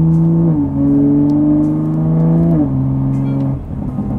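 Toyota Supra's BMW B58 turbocharged inline-six pulling hard, heard from inside the cabin. Its note climbs, then drops with two quick upshifts from third to fifth gear, about half a second and two and a half seconds in. The engine note falls away near the end as the driver eases off.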